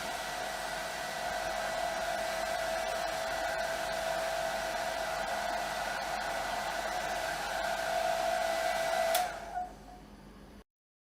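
Roura Rouge DX low-electromagnetic hair dryer running steadily, its motor whine over the rush of air. About nine seconds in it is switched off with a click and the whine winds down.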